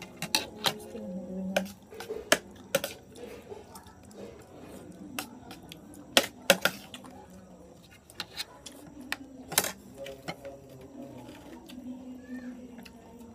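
Irregular clinks and taps of dishes and tableware during a meal, a dozen or so scattered sharp knocks, a few louder ones past the middle, over a faint murmur.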